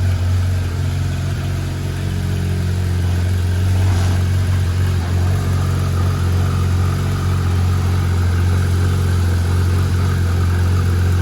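Porsche 911 R's 4.0-litre flat-six engine idling, a steady low exhaust note that holds one pitch with no revving.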